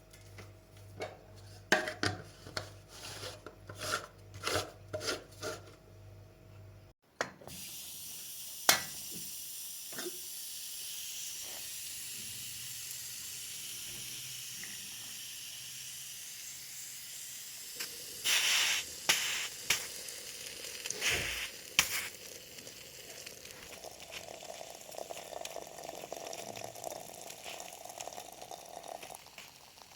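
Kitchenware clinking and knocking for several seconds, then a steady watery hiss with a cluster of loud clinks around the middle.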